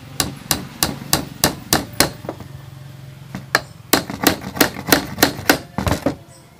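Hammer driving a one-inch nail into a sabino (Montezuma cypress) frame molding: sharp, evenly spaced blows about three a second, a pause of over a second, then a second run of blows that stops about six seconds in.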